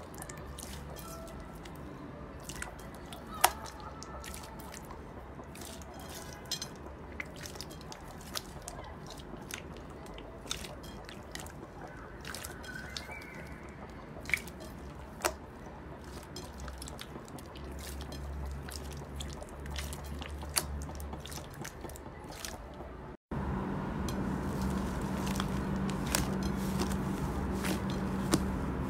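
Hands kneading and squeezing wet slime in a glass bowl: scattered sharp pops and clicks over a steady low hum. About 23 seconds in the sound cuts out for a moment and comes back louder, as slime is stretched and folded.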